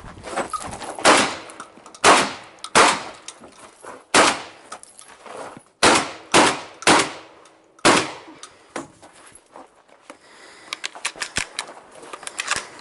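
Shotgun shots fired in a practical shooting stage: about eight loud reports over the first eight seconds, some in quick pairs and triples, each with a short echo. In the last few seconds comes a run of quieter, rapid clicking and rattling.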